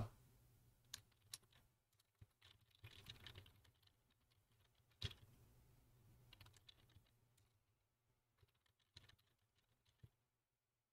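Faint, sparse computer keyboard keystrokes: scattered single clicks, a short run of taps about three seconds in and the loudest tap about five seconds in.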